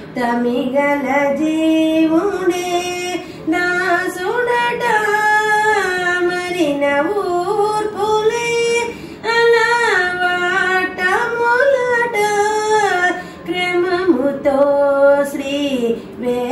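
A woman singing solo, holding long notes and sliding between pitches, with short pauses between phrases.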